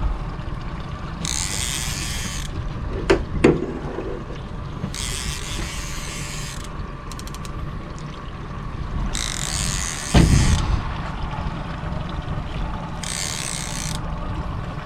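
Fishing reel being cranked in spurts of a second or two, a few seconds apart, with a ratchety mechanical rasp while a hooked fish is reeled in. A few knocks come through, the heaviest about ten seconds in, over a steady low rumble.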